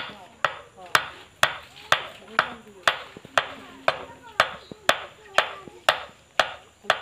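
A hammer striking the pulley hub of a Sonalika tractor water pump in steady blows, about two a second, driving the hub down onto the pump shaft during reassembly.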